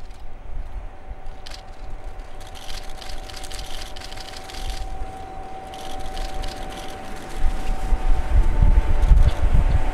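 DR class 211 electric locomotive approaching with a three-coach train: a steady whine, and the train's low rumble growing louder from about seven and a half seconds in.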